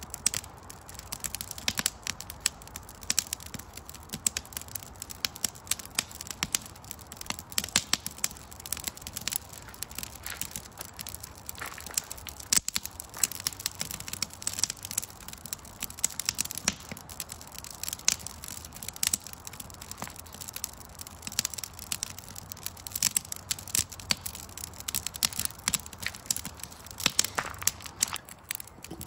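Wood fire of paper and split firewood crackling in a metal fire pit, with frequent sharp, irregular pops.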